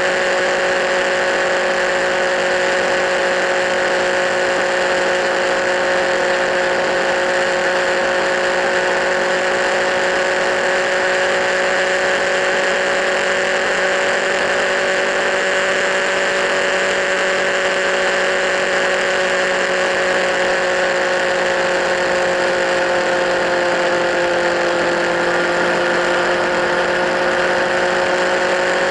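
Kawasaki Z1000 inline-four engine running at a steady speed through LeoVince slip-on exhausts. Its pitch sags slightly about twenty-four seconds in, then recovers.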